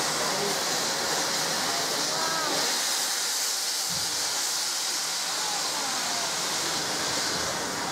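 Steady loud hiss of steam escaping from around the cylinders of GWR Castle-class 4-6-0 no. 5043, with faint crowd chatter beneath. The hiss eases slightly near the end.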